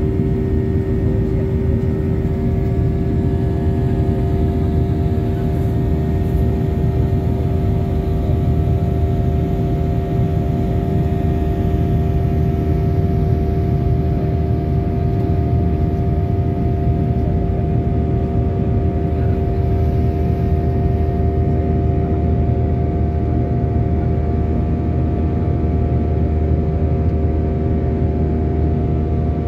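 Cabin noise inside a Boeing 737-800 climbing after takeoff: a steady, loud rumble of its CFM56-7B engines and the rushing air, with a few steady hum tones over it.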